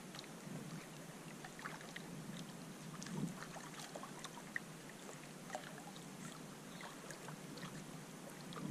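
Faint water lapping against the hull of a drifting solo canoe, with small irregular ticks and splashes and a slightly louder swell about three seconds in.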